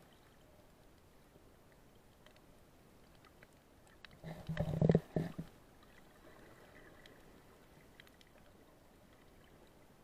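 Underwater ambience with faint scattered ticks. About four seconds in, a loud, low burst of noise with a brief hum lasts about a second and cuts off.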